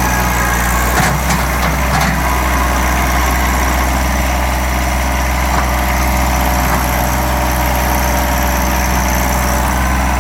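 John Deere 1023e compact tractor's three-cylinder diesel engine running steadily, with a few short knocks about a second in.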